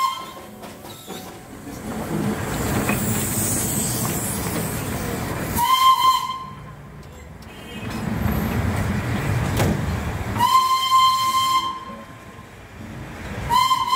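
Darjeeling toy train's whistle sounding three times: a short blast about six seconds in, a longer one past the middle, and a short one at the end. Between the blasts, the train's running rumble and hiss.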